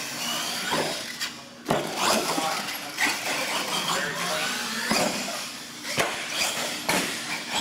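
Radio-controlled monster truck running on a concrete floor: its electric motor whines up and down as it is driven, with a series of sharp knocks from the truck bumping and landing.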